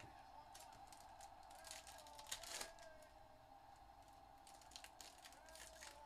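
Foil trading-card pack crinkling and tearing open in the hands: a faint run of quick crackles, busiest about two to three seconds in.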